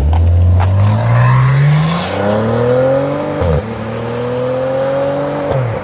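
Car engine accelerating hard through the gears: its pitch climbs, drops sharply at an upshift about three and a half seconds in, climbs again and drops at another shift near the end.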